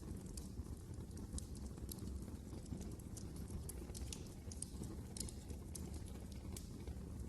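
Fire in a fireplace crackling: irregular small pops and snaps over a low, steady rumble of the flames.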